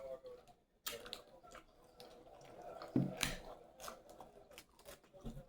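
Close-miked eating sounds: scattered soft crunches and clicks of chewing, with a sharper click about a second in and another about three seconds in.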